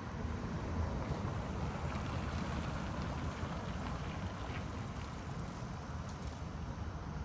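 Steady low rumble of street traffic, with a car driving past.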